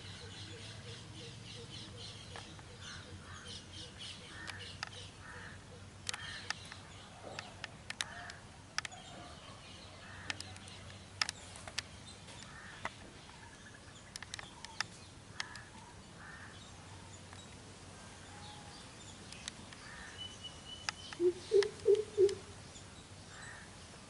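Greater coucal calling: a quick run of about five deep, resonant hooting notes near the end, the loudest sound here. Other small birds chirp throughout, with scattered sharp clicks.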